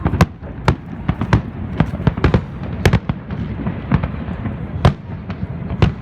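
Fireworks display going off: an irregular string of sharp bangs and crackles, several a second, over a continuous low rumble of bursts.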